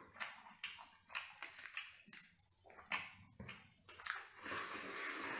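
Close-up eating sounds of a person chewing spicy crayfish: irregular wet clicks, snaps and smacks of biting and chewing, with a longer slurping, sucking stretch near the end.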